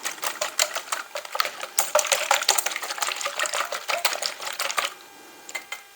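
Wire whisk beating eggs in a bowl: rapid, steady clicking strokes with a wet slosh, stopping near the end.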